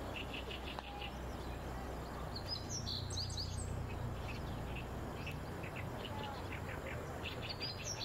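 Small wild birds singing and calling: runs of short repeated chirps, with a phrase of quick high sweeping notes about three seconds in and again near the end, over a steady low rumble.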